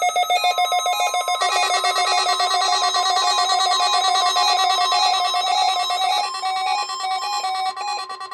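Weather-radio alert alarm: a steady high tone under rapid, warbling electronic beeps, thinning out near the end. It signals the start of a NOAA Weather Radio test alert for a tornado drill.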